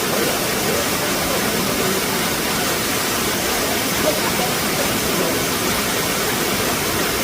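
Waterfall running: a steady, loud, even rush of falling water.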